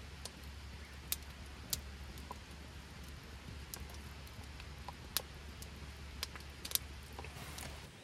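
Scattered sharp clicks and pops, a dozen or so at uneven intervals, over a steady low rumble that cuts off at the end.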